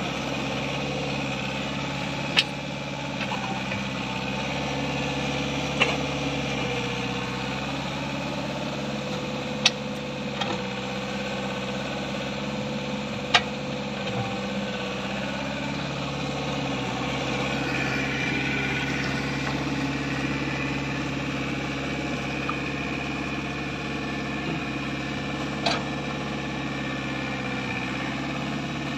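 Mini excavator engine running steadily, with about five sharp short knocks scattered through it.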